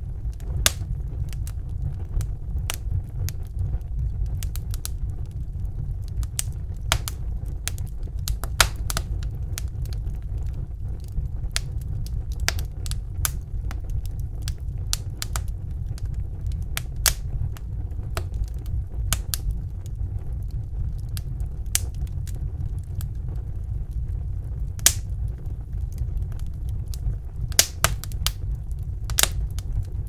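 Wood fire crackling, with irregular sharp pops scattered throughout, a few louder than the rest, over a steady low rumble.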